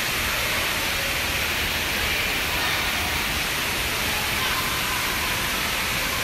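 Steady, even rushing noise with no breaks and no change in level: the ambience of a glass-roofed indoor rainforest exhibit.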